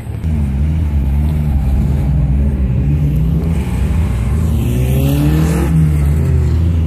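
A car engine running loudly with a deep exhaust drone, its pitch wavering, then rising as it revs and accelerates about five seconds in.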